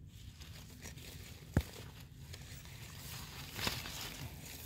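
Hands rustling through leaf litter and soil while picking termite mushrooms: soft crinkling and scraping, with one sharp click about a second and a half in and a slightly louder rustle near the end.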